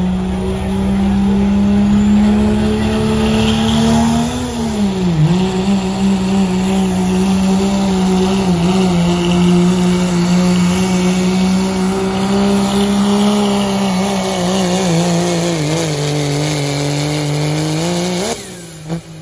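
Turbocharged diesel pickup engine, run on a 2.6-inch smoothbore turbo, at full throttle while pulling a weight-transfer sled. It holds a steady high-rpm drone that sags and recovers about five seconds in and dips again later. Near the end it surges briefly and then cuts off suddenly as the throttle is lifted.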